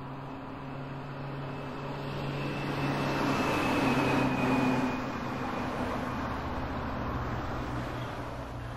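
Traffic on a flooded street: a steady low engine hum under a rushing noise of vehicles moving through water, building to its loudest about four seconds in and then easing off.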